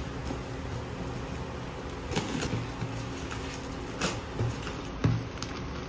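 Box cutter slitting the packing tape on a plastic-wrapped cardboard parcel, with a few short scrapes and taps as the box is handled, over a steady low hum.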